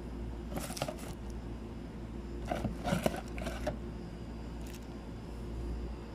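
Rustling and crinkling of plastic sheeting and product packaging being handled, in short bursts about a second in and around three seconds in, over a low steady hum.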